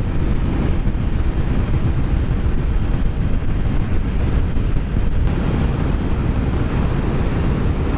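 Wind rushing over a helmet-mounted microphone on a scooter riding at speed, a steady, loud, low rumble with the engine and tyre noise buried underneath.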